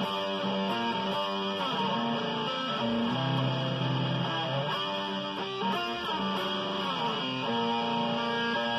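Electric guitar playing a melodic riff of held single notes, with the pitch gliding between some of them.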